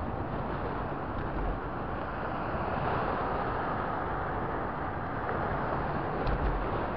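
Steady road noise from a moving car: tyres and engine running at cruising speed, picked up by a dashcam microphone. A faint click about six seconds in.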